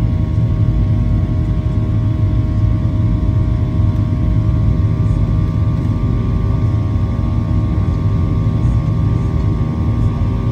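Airliner cabin noise during the climb after takeoff: the steady low roar of the jet engines and airflow, with several steady humming tones from the engines over it.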